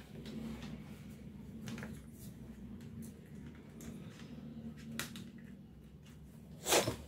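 Quiet workbench handling of a circuit board and soldering iron: a few light clicks and a short scrape about two-thirds of a second before the end, over a faint steady hum.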